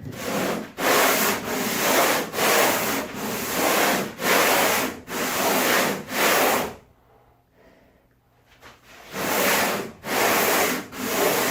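Hand sanding a plywood boat hull with sandpaper, in even back-and-forth strokes about one a second. The strokes stop for about two seconds past the middle, then start again.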